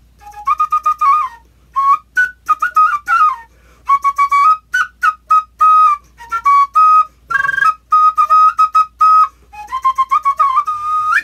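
Small wooden end-blown flute playing a lively melody of short, clipped notes over a narrow range of pitches, in quick phrases with brief pauses. There is a few trills and slides, and a rising note near the end.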